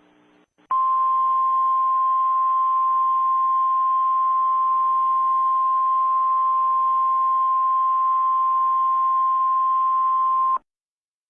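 Emergency Alert System attention tone: a single steady high-pitched tone that starts abruptly under a second in and cuts off abruptly about ten seconds later, over faint static.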